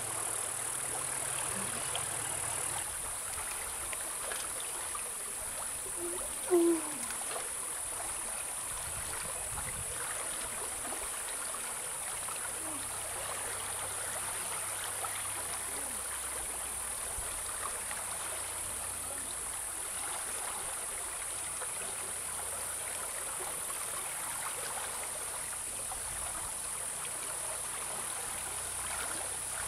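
Shallow river water running steadily over rocks, with one brief loud sound about six and a half seconds in.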